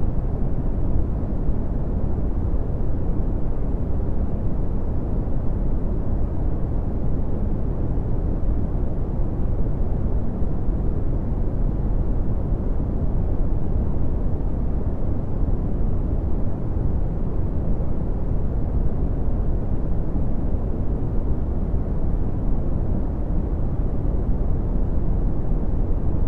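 Red (Brownian) noise: a steady, deep, even rumble-like hiss, strongest in the bass and falling away toward the treble, unchanging throughout.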